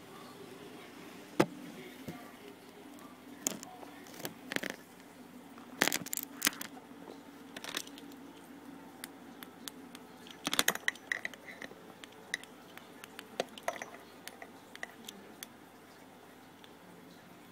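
Handling noise: scattered sharp clicks and light crackling rustles, a few of them in quick clusters, over a faint steady hum.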